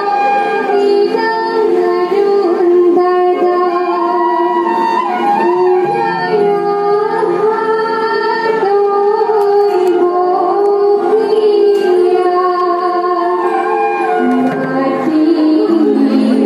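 Indian stage music: singing in long held, gliding notes over instruments, running without a break.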